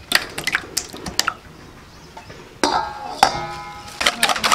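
Raw duck eggs tipped into a stainless steel bowl with a few sharp clinks. About four seconds in, a wire whisk starts beating them rapidly against the bowl. A short pitched call or voice is heard in the middle.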